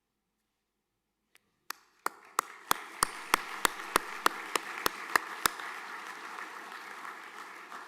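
An audience applauding, starting about two seconds in. For the first few seconds there are loud, evenly spaced claps about three a second, standing out over the crowd's clapping.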